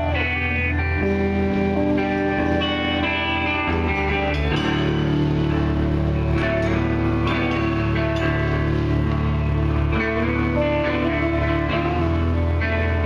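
Live rock band's electric guitars playing held, ringing chords over low sustained notes that shift every few seconds.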